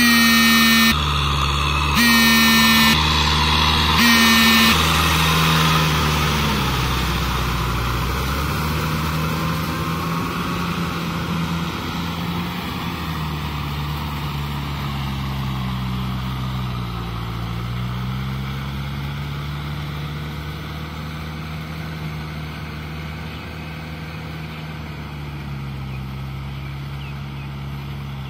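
Farm tractor's diesel engine running under load while pulling a rotavator through a flooded paddy field. Its pitch rises and falls and it gradually fades, and three loud pitched blasts sound in the first five seconds.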